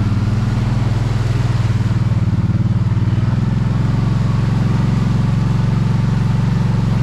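Off-road vehicle engine running at low, steady revs, pulling the vehicle through a flooded mud hole on a trail.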